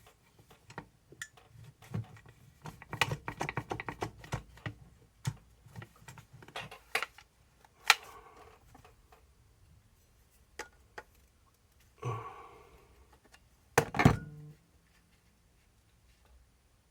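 Small metal parts and tools clicking, clinking and knocking as RC shocks are taken apart and handled on a workbench, with a run of quick clicks a few seconds in and two louder clinks with a brief ring later on.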